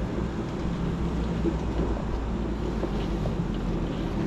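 Two-door Ford Bronco driving slowly up a rutted dirt hill: a steady low engine rumble with wind noise on the microphone.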